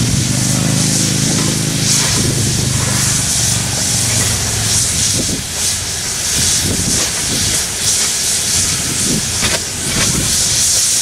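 1923 Montreal Locomotive Works 0-6-0 switcher steam locomotive standing and hissing steam steadily, with a low hum that fades out after about three seconds.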